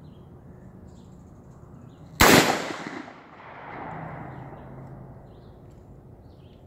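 A single rifle shot, sharp and loud, with its report echoing away over about a second, followed by a faint low rumble rolling back.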